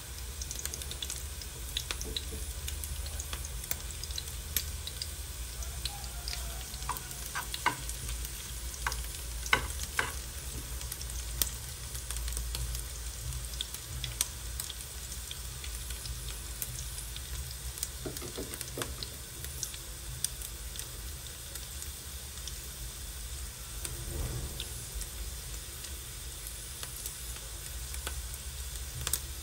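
Sliced onions sizzling and crackling in hot oil in a stainless steel frying pan, with a spoon stirring them and a few louder clicks against the pan.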